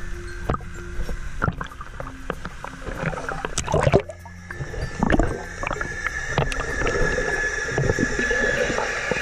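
Water splashing and sloshing in a swimming pool, with a burst of splashing as the camera plunges under the surface about four seconds in. After that the sound turns muffled, with underwater gurgling and bubbling.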